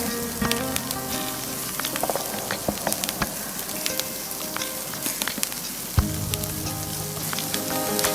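Lamb chops sizzling on a grill over a wood fire, a steady hiss with many small pops and crackles. Faint background music with sustained notes sits underneath.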